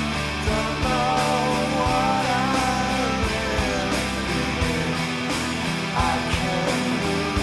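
Rock song playing in an instrumental stretch between sung lines: electric guitars and bass over a steady drum beat.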